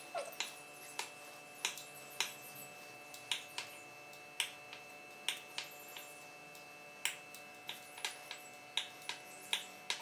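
Kitchen knife chopping down through a rolled, layered dough log onto a hard countertop. Each cut gives a sharp click, at an uneven pace of about two a second, over a faint steady hum.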